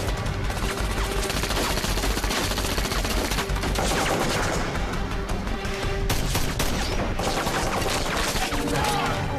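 Continuous automatic gunfire from several rifles firing at once, a dense run of shots without a break, with a film score underneath.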